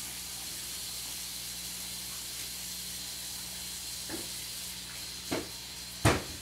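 Kitchen tap running into a sink during hand washing, a steady hiss of water. Two light knocks come about four and five seconds in, and a louder knock just before the end.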